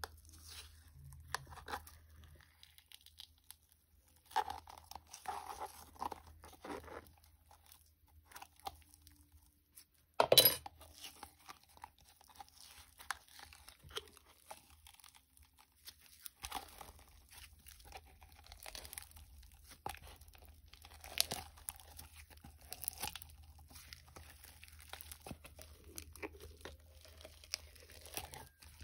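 Glue slime being worked and mixed by hand: scattered crackling, crinkling handling sounds, with one sharp, louder crack about ten seconds in.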